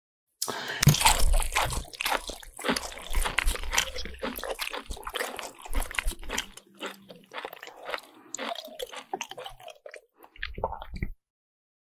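Close-miked ASMR eating sounds: a dense, irregular run of crisp crunching bites and chewing. It starts about half a second in and stops abruptly about a second before the end.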